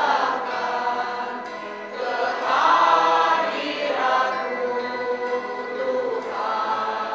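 A women's choir singing a slow song in long held notes.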